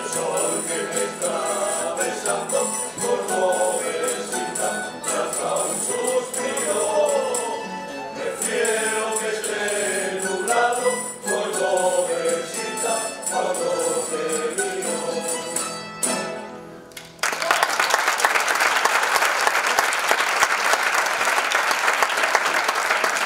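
A Spanish tuna singing in a male chorus over strummed guitars and bandurrias, with a tambourine jingling, as the song comes to its close. The music stops about sixteen seconds in, and a second later the audience breaks into steady applause.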